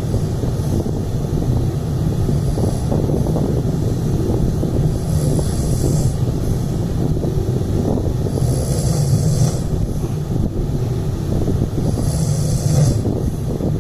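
A man snoring in his sleep: a steady low rumble with a breathy hiss about every three to four seconds.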